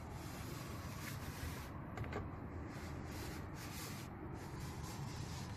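Manual window crank of a 1972 Mercedes W115's door being turned, a faint steady mechanical rubbing from the window regulator with a few light clicks as the glass moves.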